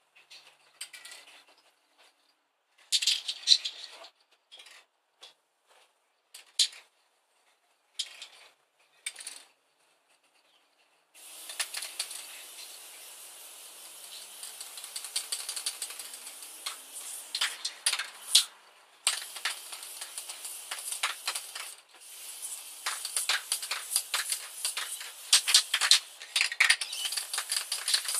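Aerosol spray-paint can being worked against a brick wall. First come short separate bursts of rattling and spraying. About a third of the way in, a long hissing spray begins and runs on, broken twice briefly, with the can's mixing ball rattling through it.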